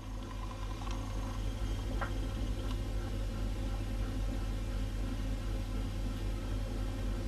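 Steady low hum of an idling vehicle engine heard from inside the vehicle, with a couple of faint ticks.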